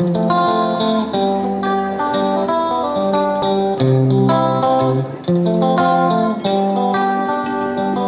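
Background music: a plucked guitar melody, the notes following one another evenly.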